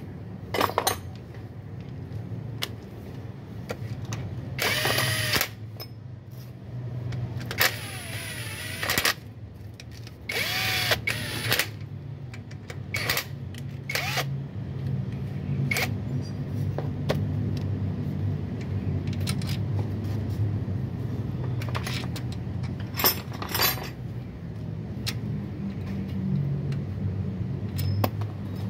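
A handheld power tool runs in short bursts, three at about 5, 8 and 11 seconds in and two brief ones near 23 seconds, with sharp metallic clinks of tools in between. A steady low hum runs underneath.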